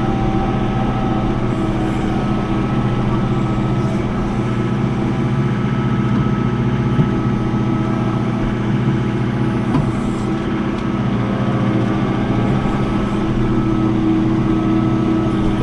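John Deere 4066 compact tractor's diesel engine running steadily at even revs while the loader works dirt.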